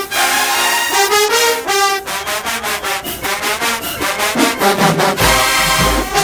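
HBCU marching band playing: loud brass chords, then a quick run of sharp drum hits about five a second, with heavy low drums and brass coming in about five seconds in.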